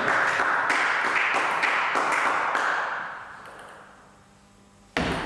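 Table tennis ball tapping several times between points, sharp irregular clicks over a hiss that fades out about three seconds in. A sudden loud knock comes near the end.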